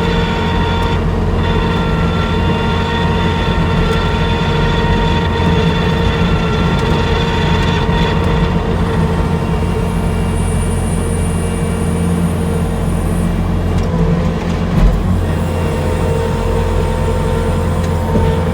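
Skid loader engine running steadily under work, with a steady whine over the drone and one brief thump about three-quarters of the way through.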